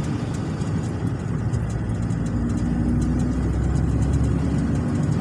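MAN diesel truck's engine running as it drives in traffic, heard from inside the cab: a steady low drone with road rumble.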